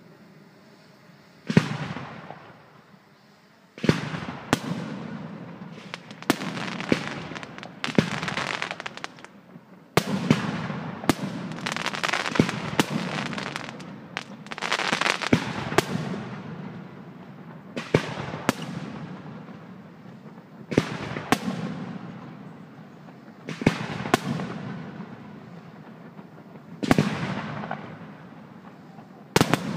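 Fireworks display: about twenty sharp aerial shell bursts at irregular intervals of one to three seconds, each followed by a fading tail.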